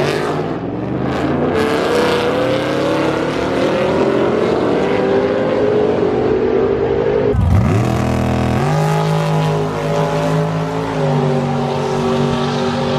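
Drag-racing engines at full throttle down the strip, their pitch climbing steadily for several seconds. About seven seconds in the sound changes abruptly to a steady engine note.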